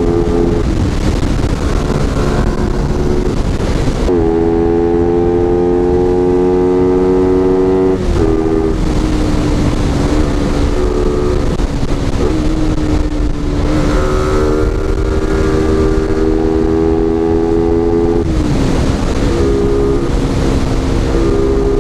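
Motorcycle engine running at road speed, with a steady rush of wind noise underneath. The engine's pitch climbs slowly over several seconds and drops back a few times, about a third of the way in and again near the end.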